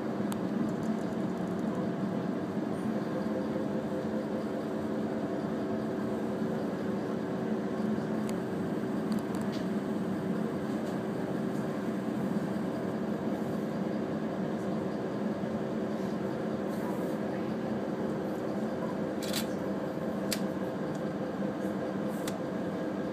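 Steady indoor background hum with a few low steady tones running through it, typical of ventilation in an animal house, and a few sharp clicks near the end.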